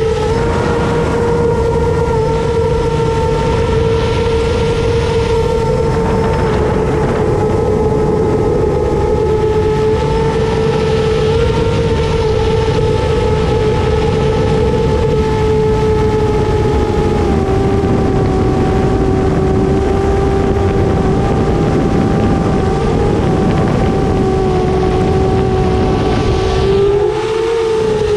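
Brushless motors and three-blade 7-inch propellers of a 7-inch long-range FPV quadcopter in flight: a steady hum with overtones over rushing wind. The pitch sags slowly with throttle and rises briefly near the end.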